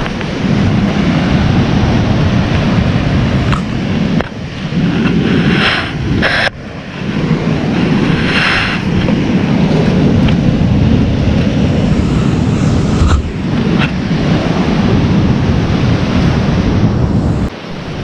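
Ocean surf washing over rocks and sand, with heavy wind buffeting the microphone as a loud, low rumble. Two louder hissing washes of surf come about five and eight seconds in.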